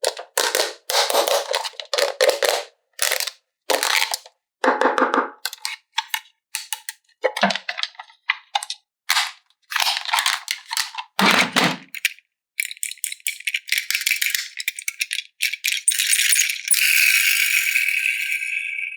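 Plastic toy playset parts rattling and clacking in many short separate bursts. From about two-thirds of the way in, a steady hiss takes over and grows louder toward the end.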